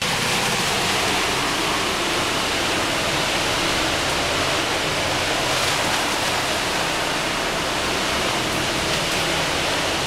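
Wet concrete of about a 4 slump churning and sloshing inside a concrete mixer truck's slowly rotating drum, a steady rushing noise, with the truck's engine running low underneath. The drum is turning in the direction that spirals the mix inward to hold it in.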